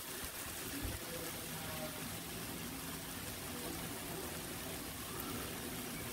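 Faint, steady sizzle of vegetables frying in oil in a clay pot.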